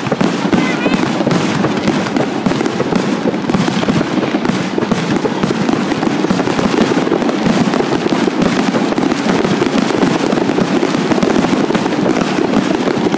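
Fireworks finale: aerial shells bursting and crackling in a dense, unbroken barrage with no pauses between bursts.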